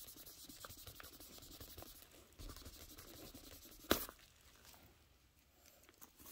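Soft rubbing of a tissue wiping a black jewelry testing stone clean, with one sharp tap about four seconds in.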